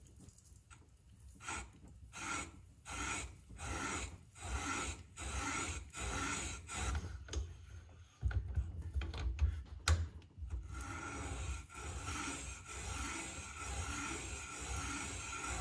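Mira VG91 manual valve seat cutter's profiled three-angle cutter scraping the inlet valve seat of a Mini cylinder head as its handle is turned by hand, cutting the 30°, 45° and 60° angles at once. Rhythmic rasping strokes, about one and a half a second, begin about a second and a half in. They run together into a steadier scrape from about eight seconds, with one sharp click near ten seconds.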